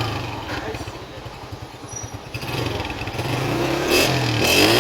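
Honda CG 125 single-cylinder four-stroke motorcycle engine running through an aftermarket AHL-3 silencer, ticking over steadily, then revved up near the end.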